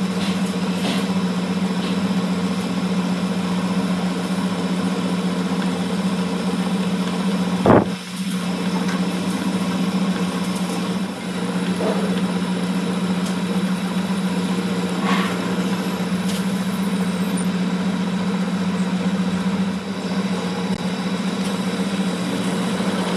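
A steady machine hum, an engine or motor running at an even speed, with one sharp knock about eight seconds in and a few faint ticks later.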